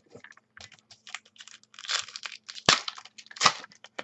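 Football trading card pack being torn open and handled: the wrapper crinkles and tears in a string of small crackles, with louder snaps about two, two and a half and three and a half seconds in.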